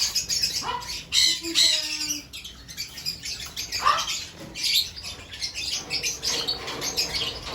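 Pet parrots in an aviary squawking: several short, shrill calls at irregular intervals.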